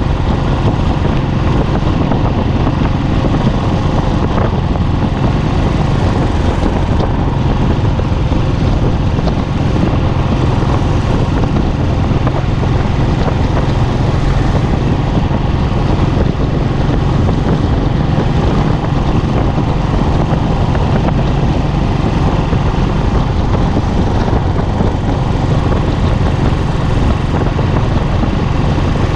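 Royal Enfield Classic's single-cylinder engine and exhaust running at a steady cruising speed, heard from the bike's own handlebars, with an even drone that does not change pitch.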